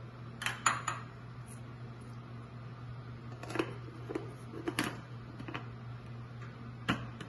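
Clinks and knocks as a ceramic bowl is set down on a marble countertop and a plastic mini chopper's bowl and lid are handled: a quick group of clicks about half a second in, a scatter of knocks around four to five seconds, and one more near the end.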